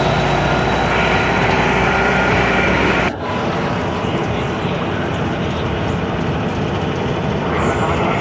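Steady running noise of a moving vehicle. It breaks off abruptly about three seconds in and carries on as a slightly quieter noise of a different character.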